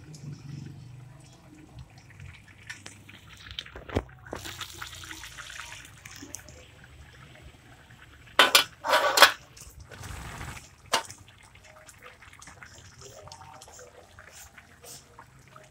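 Chicken and bamboo-shoot stew simmering in a wok, with faint bubbling and scattered small clinks. A few loud knocks and rattles come in a cluster about eight to nine seconds in.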